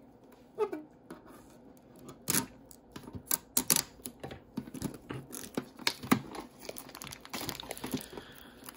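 Plastic wrapping being torn and crinkled off a trading-card collector's tin: a run of sharp, irregular crackles and clicks starting about two seconds in.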